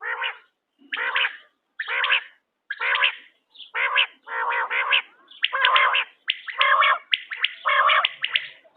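Quail (bater) calling over and over, about one call a second. Each call is a few sharp high notes running into a harsher rasp, and the calls get longer near the end.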